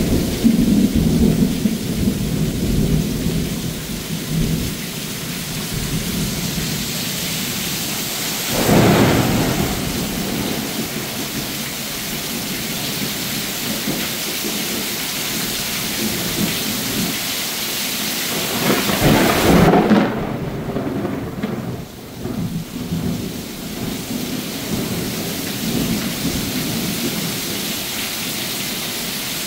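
Heavy thunderstorm rain pouring onto a pool, its concrete deck and a screen enclosure, with water sheeting off the roof edge in a steady hiss. Thunder rumbles low near the start, and two louder swells come about nine and nineteen seconds in.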